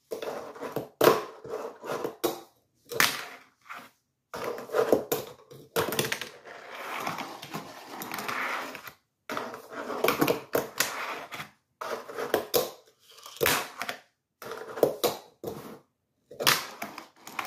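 Fingerboard wheels rolling over plywood, with sharp clacks as the board pops and lands on a homemade cardboard stair set. It comes in a series of short runs cut off by sudden brief silences.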